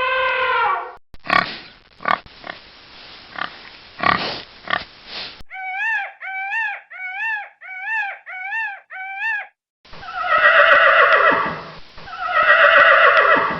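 A run of different farm animal calls: a long pitched call ends about a second in, then several seconds of pig grunting, then seven short identical calls in an even row, and after a brief silence two long loud cries.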